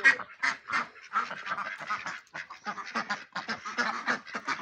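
A mixed flock of farmyard ducks quacking, with many short calls overlapping in quick succession.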